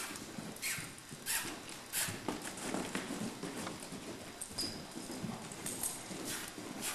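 Young Morgan stallion cantering loose on soft arena dirt: muffled hoofbeats in an uneven, rolling rhythm, with a few short hissing noises over them.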